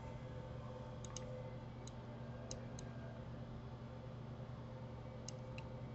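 Computer mouse clicking: about seven short, sharp clicks, some in quick pairs, over a faint steady hum.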